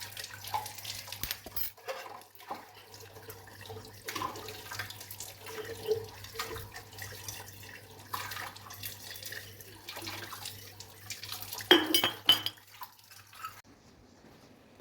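Water running and dripping with repeated clinks and knocks of hard household objects, one sharp ringing clink loudest about twelve seconds in, over a faint steady low hum.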